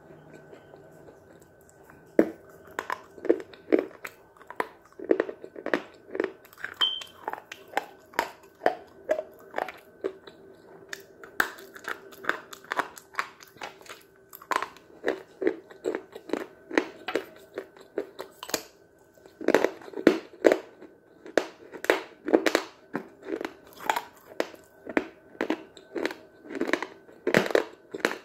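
Sticks of white chalk bitten and chewed close to the microphone: a long run of sharp, dry crunches, about two a second, starting a couple of seconds in, with a short pause a little past halfway before the chewing resumes louder.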